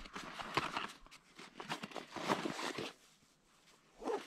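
A folded metal camp grill being slid into its fabric storage pouch: rustling and scraping with small clicks, then a brief louder sound near the end.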